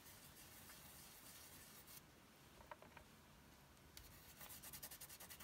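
Faint rubbing of a fingertip working wax through a paper stencil onto compressed board, turning into quick short strokes near the end.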